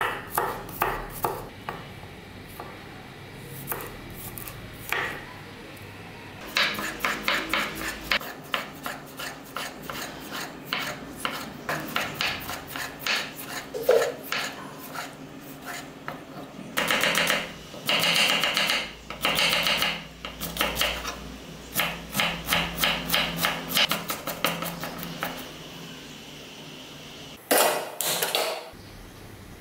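A knife chopping on a wooden cutting board in quick runs of sharp strokes, slicing garlic cloves and then tomatoes, with a few longer scraping stretches. Near the end a gas stove burner lights with a short, loud whoosh.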